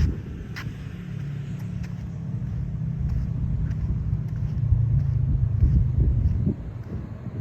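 Low, steady vehicle rumble with a few faint clicks.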